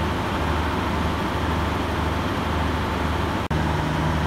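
Diesel railcar engines idling: a steady low hum with a faint high tone above it, broken by a momentary gap about three and a half seconds in, after which a slightly higher hum joins.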